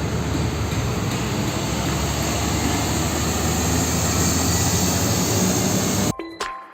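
Heavy vehicle engine running steadily, a dense low noise that cuts off suddenly near the end.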